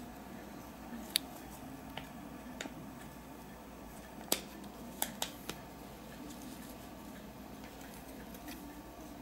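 Small plastic and diecast metal model-car parts clicking and tapping as they are handled and fitted together, about seven sharp clicks scattered through, the loudest about four seconds in, over a faint steady hum.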